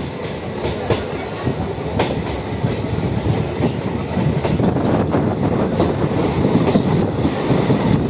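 Passenger train running at speed, heard from aboard: a steady rumble of wheels on the track with a few sharp clacks as the wheels pass over rail joints, growing a little louder toward the end.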